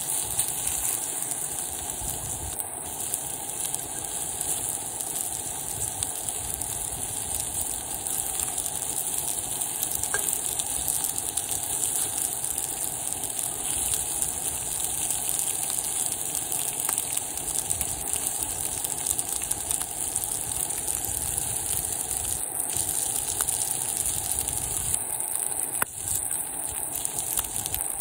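Seafood and mushroom ravioli frying in a cast iron skillet, a steady sizzle, with a few light scrapes and clicks of a metal spatula turning the food in the pan.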